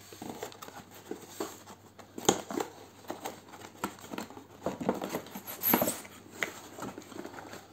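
A cardboard box being opened by hand: the lid flap and the inner cardboard insert scrape and rub against the box, with irregular rustles and small knocks. There is a sharper knock a little over two seconds in, and louder scraping around six seconds in.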